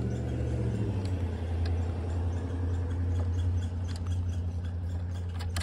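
An engine idling steadily, a continuous low hum, with a few faint clicks.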